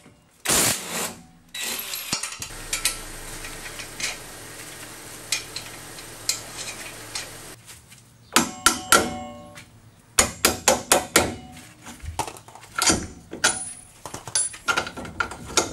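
Cordless impact wrench running for several seconds on a strut-to-knuckle bolt. It is followed, from about eight seconds in, by a string of sharp metal clinks and knocks as the bolts and hardware are worked loose by hand.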